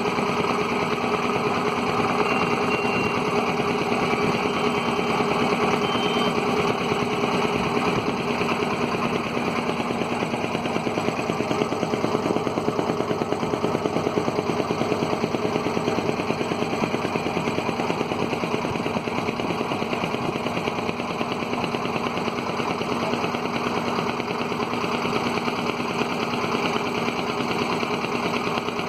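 A wooden river boat's small engine running steadily, with a rapid, even chugging.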